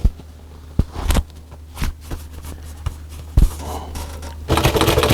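A few sharp separate clicks and knocks over a steady low hum, then about four and a half seconds in a sewing machine starts up and stitches at a fast, even rate through leather.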